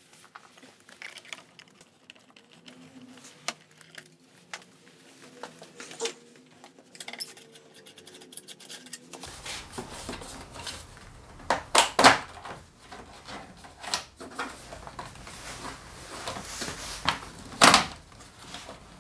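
Plastic clicks and clacks from a scooter's handlebar cover and switch housing being pried at and handled with a small tool, irregular, with a few sharper, louder clacks in the second half.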